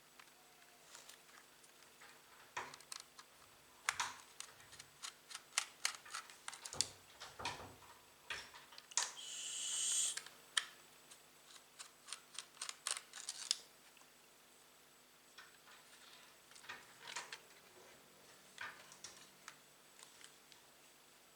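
Hands working on a laptop during an SSD upgrade: a run of small clicks and taps of plastic and metal parts and tools. About nine seconds in, a rising scrape lasting about a second is the loudest sound, and the clicks thin out in the second half.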